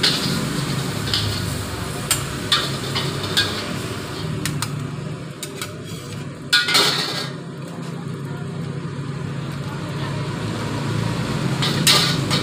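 Metal spatula scraping and clanking against a steel wok as stir-fried flat rice noodles are tossed and scooped, with a light sizzle. A steady low rumble, from the wok burner, runs underneath. The longest, loudest scrape comes about six and a half seconds in, and spatula and ladle clink together near the end.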